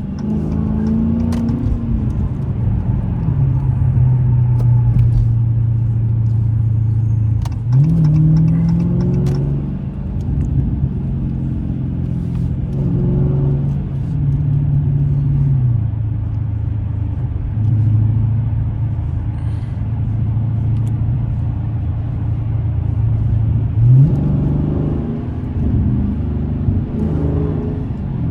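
Dodge Scat Pack's 392 HEMI V8 under way, a steady low exhaust drone that climbs in pitch as it is revved up about four times and then settles back to a cruise.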